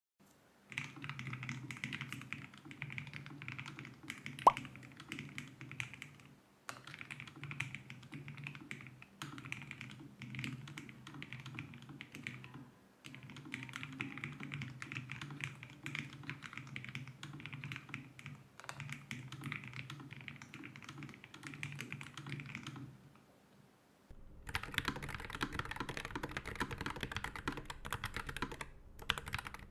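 Fast, continuous typing on a low-profile mechanical keyboard, with a few short pauses and one sharper, louder click about four and a half seconds in. After a brief gap about 24 seconds in, the typing changes character, as a second low-profile keyboard takes over.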